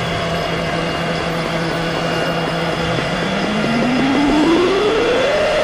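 Electronic psytrance music played live on synthesizers: dense, steady synth drones, with one tone sliding smoothly upward in pitch from about three seconds in and then holding.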